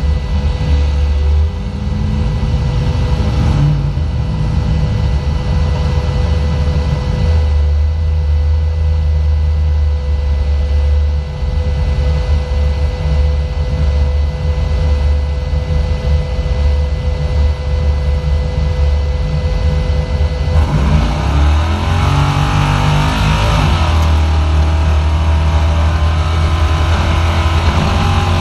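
Race car engine heard from inside the car, running with a heavy low rumble for about twenty seconds, then revving up with a rising pitch as the car accelerates away.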